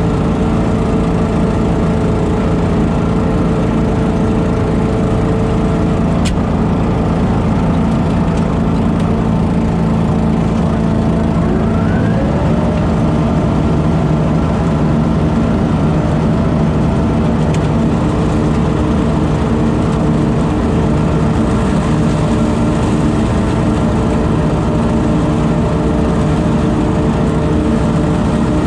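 Engine of a lawn leaf-vacuum and mulcher running steadily at constant speed, with a faint rising whine about twelve seconds in.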